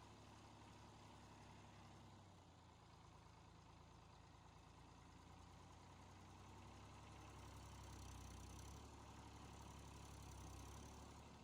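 Faint diesel engine running steadily at idle-like revs, a little louder about eight seconds in and again near the end.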